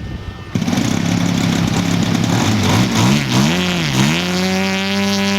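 Desert Aircraft DA-170 twin-cylinder two-stroke petrol engine of a giant-scale RC Sukhoi Su-29 cutting in sharply about half a second in. It runs steadily, then swoops up and down in speed a few times before holding at a steady higher speed.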